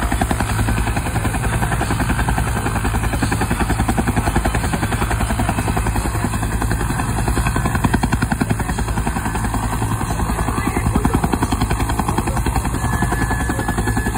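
Bell UH-1 "Huey" helicopter running on the ground, its turbine and two-bladed main rotor turning steadily with a fast, even blade chop.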